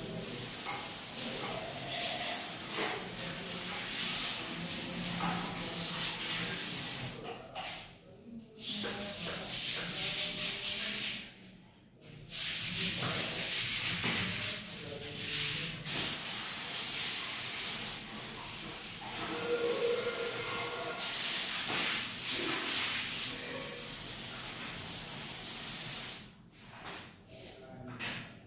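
Handheld bidet sprayer spraying water onto a tiled bathroom floor and toilet: a steady hiss that stops briefly a few times.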